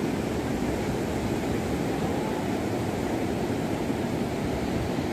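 Steady rushing noise of sea surf breaking on a sandy shore, even and unbroken, with a deep rumble underneath.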